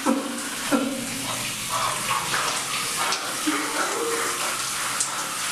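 Shower running, a steady spray of water in a tiled shower stall, with a man's short voice sounds over it a few times.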